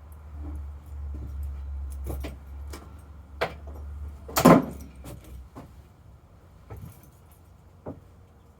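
Metallic clinks and knocks of a motorcycle battery and its fittings being handled in the battery tray, the loudest knock about four and a half seconds in. A low steady rumble runs underneath and stops after about five seconds.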